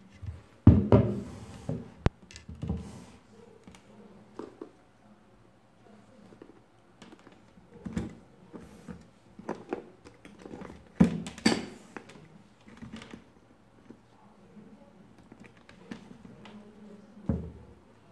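Handling noises on a wooden tabletop: a small sealed lead-acid battery and a digital multimeter being moved and set down, with wires and test leads clicking and rattling. Irregular knocks and clicks, the loudest about a second in and near eleven seconds.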